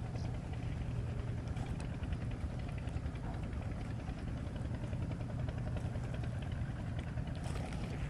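A steady low rumble, with a faint haze of higher noise and a few faint ticks over it.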